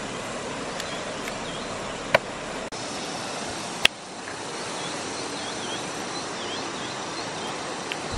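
Steady rush of flowing stream water, with two sharp knocks in the first half and short high chirps repeating after about four seconds.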